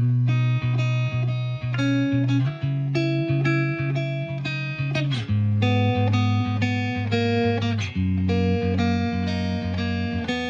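Background music led by guitar, a steady run of plucked notes.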